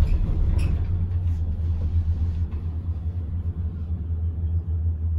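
Cable car gondola travelling along its haul rope, heard from inside the cabin as a steady low rumble, with one light click about half a second in.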